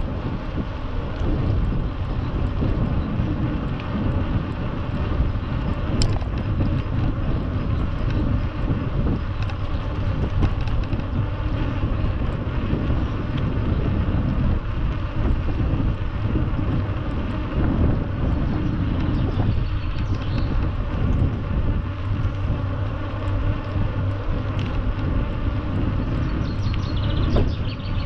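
Steady low rumble of wind on the microphone over outdoor background noise, with a single sharp click about six seconds in.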